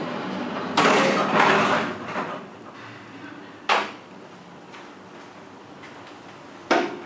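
Vintage 1967 Flohr-Otis elevator car doors sliding shut, a loud noisy slide lasting about a second and a half, then a sharp clack as they close nearly four seconds in. A second sharp click comes near the end.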